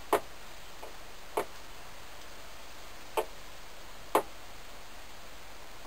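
Four sharp single clicks or taps, irregularly spaced one to two seconds apart, over a low steady background hiss.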